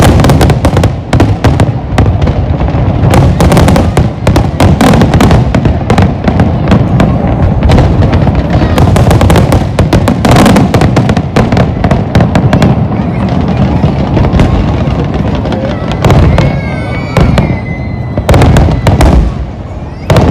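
Fireworks display with many shells bursting overhead in rapid, continuous bangs and crackling. A brief high whistle comes through about three quarters of the way in.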